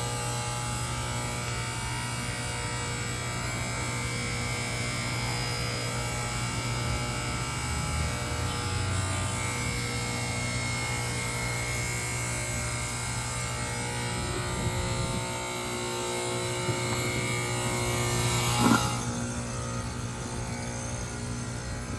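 Carrier Comfort Series heat pump outdoor units running in defrost, a steady compressor hum with many steady tones over it. About three-quarters of the way through comes a short, loud burst, after which the high hiss falls away.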